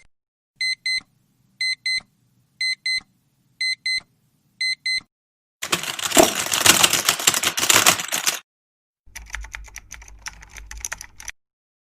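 Electronic alarm beeping in pairs, about one pair a second, five times. It is followed by a loud, dense mechanical clatter of about three seconds, then a quieter rattle over a low hum.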